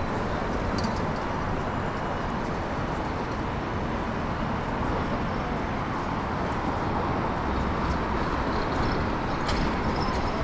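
Steady city street ambience: a constant wash of traffic noise, with a few faint clicks on top.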